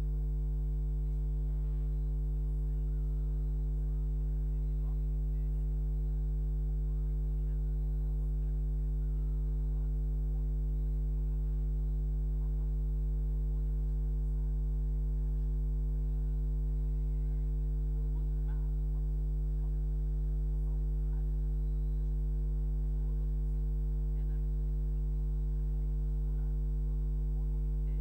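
Steady electrical mains hum, low and unchanging, with a thin buzz of higher overtones above it.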